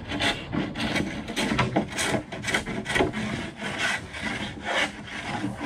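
Hand tool shaving the edge of a plywood form in quick, repeated strokes, trimming oversize, damp plywood to fit.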